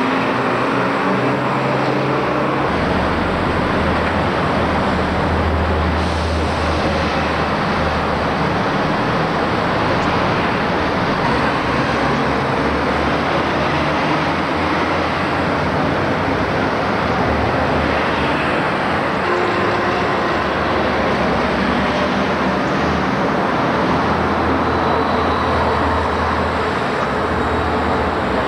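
City road traffic: cars and double-decker buses driving past, a steady wash of road noise with heavy engine rumble that swells and fades every few seconds.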